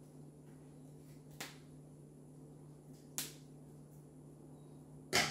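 Three sharp clicks from cooking at a tabletop grill, spaced about two seconds apart, the last one loudest near the end, over a faint steady low hum.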